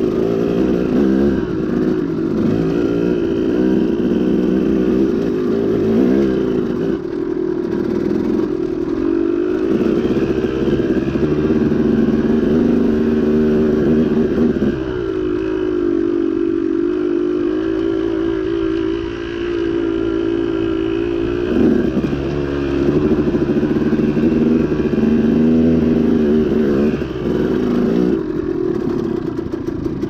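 KTM two-stroke dirt bike engine running under load while riding a trail. Its pitch rises and falls with the throttle, with a short easing-off about halfway through and another rev change a few seconds later.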